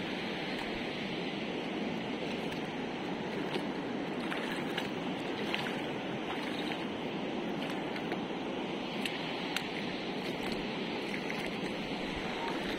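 Steady rush of flowing river water, with a few faint clicks scattered through it.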